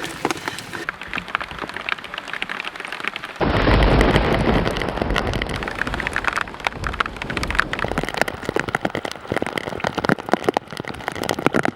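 Heavy rain falling, with many close drops pattering irregularly. About three seconds in it jumps to a louder rush with a deep rumble, which eases off a few seconds later.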